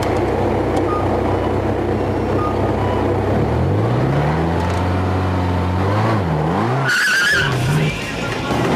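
A car engine running, then revving with a rising pitch about a third of the way in, dipping and climbing again, followed by a brief tyre squeal near the end.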